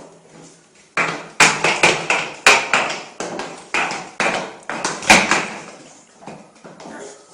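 Plastic toy high heels clacking with each step of a small child walking, about two to three sharp clacks a second. They start about a second in and die away near the end.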